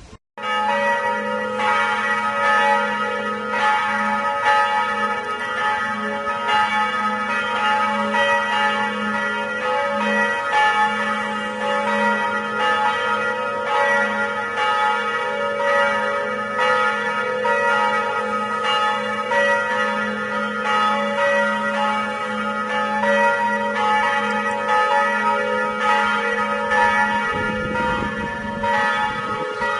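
Church bells pealing, struck over and over with the tones ringing on and overlapping between strikes.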